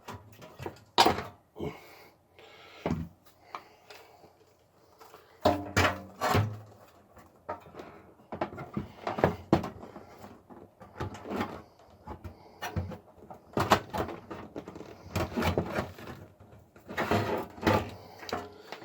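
Irregular knocks, clunks and scrapes as a power supply is worked into a cramped PC tower case.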